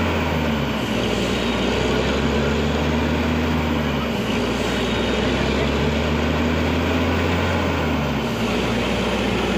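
Borewell drilling rig running steadily under load, a loud, continuous engine-and-drilling noise. Its low hum shifts pitch about every four seconds.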